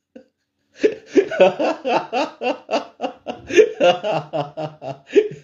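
A man laughing heartily: a long run of short, rapid laugh pulses starting about a second in.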